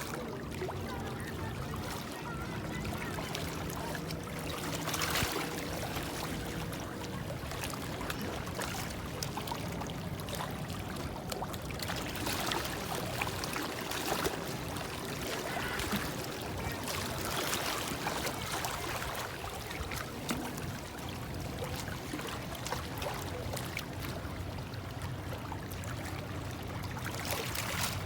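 Sea waves washing against shoreline rocks: a continuous rush of water, with a louder splash every several seconds.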